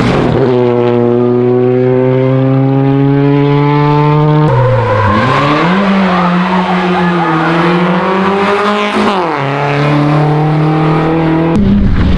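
Rally car engine running hard at high, steady revs. The note dips and climbs back up twice, then changes abruptly near the end.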